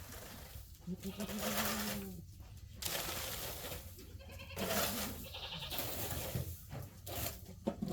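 Dairy goats bleating: two calls, each about a second long, the second one wavering.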